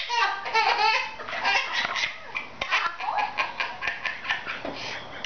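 A toddler laughing hard: a long run of quick, breathy ha-ha pulses, about four a second, with higher squealing at the start.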